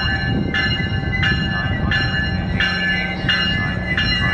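Passenger diesel locomotive's bell ringing steadily, struck about every 0.7 seconds, as the train rolls slowly into the station, over the steady low rumble of its diesel engine.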